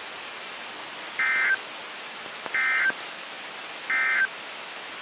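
Three short identical bursts of EAS SAME digital data tones, the warbling end-of-message code sent three times about a second apart, marking the end of the alert broadcast. A steady static hiss runs under them.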